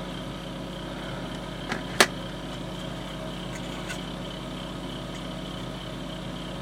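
Steady background hum of a workshop, with a single sharp click about two seconds in.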